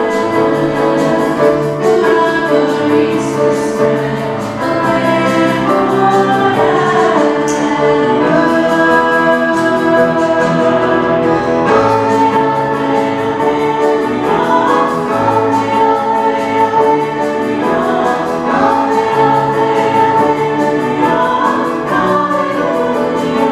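Liturgical singing with organ accompaniment: a sung melody over held organ bass notes, the Gospel acclamation before the Gospel reading.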